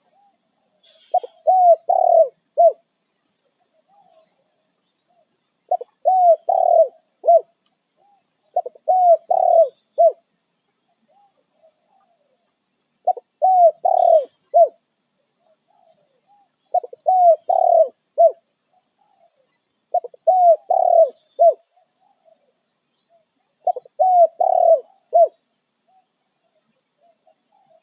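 Spotted dove (tekukur) cooing its song, seven short phrases of three or four low coos each, repeated about every three and a half seconds.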